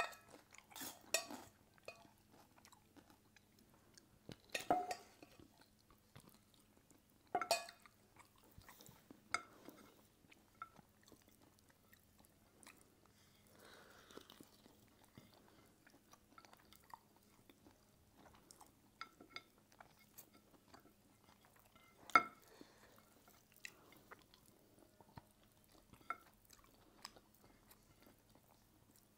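Two people eating with their hands: quiet chewing and mouth sounds, broken by scattered short clicks and clinks of a spoon and dishes. The sharpest clicks come about a second in, near five and seven and a half seconds, and at about twenty-two seconds.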